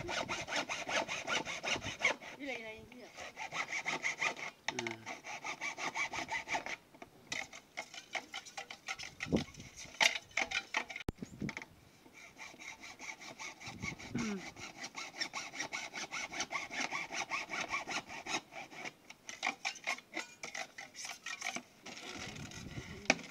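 Hacksaw blade cutting through grey PVC pipe in rapid, steady back-and-forth strokes, with a couple of short pauses.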